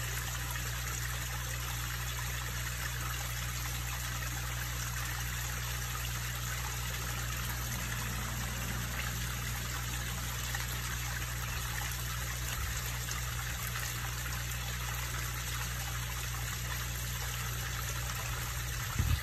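Small stone waterfall splashing and trickling steadily into a koi pond, with a steady low hum underneath.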